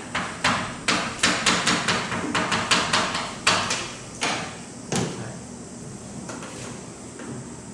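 A quick series of sharp taps and clicks, several a second, for about the first five seconds, then thinning to a few faint ticks. They are typical of writing strokes on a board during a lecture.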